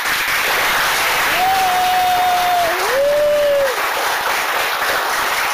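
A crowd applauding steadily. About a third of the way in, two long held notes sound over the clapping, the second one lower and sliding up.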